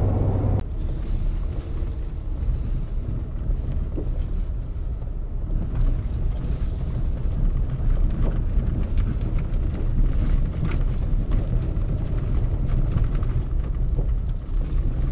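Pickup truck driving along a gravel dirt road, heard from inside the cab: a continuous low rumble of engine and tyres on the loose surface, with scattered small knocks and rattles.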